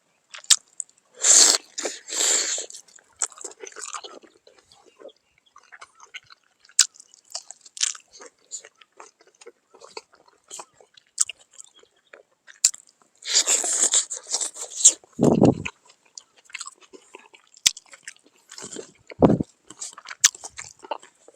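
A person chewing and biting food close to the microphone, with crunchy, wet mouth sounds coming in irregular bursts.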